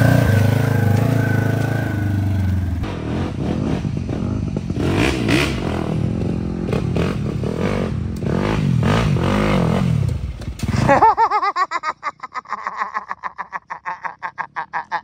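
A side-by-side UTV's engine running steadily, then a dirt bike's engine revving up and down, its pitch rising and falling as it rides through mud. About eleven seconds in, the low rumble drops away suddenly, leaving a fast, regular pulsing.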